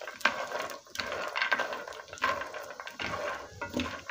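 Skin-on almonds being stirred in a heavy frying pan while they roast in a little oil: a dense rattling clatter of nuts tumbling and scraping over the pan, coming in uneven strokes with brief pauses.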